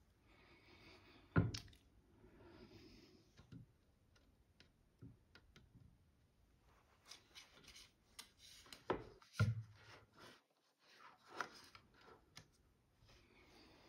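Faint handling sounds of hand cross-stitching: thread rasping softly as it is drawn through the fabric, with a few sharp clicks. The loudest click comes about a second and a half in, and two more come near the end.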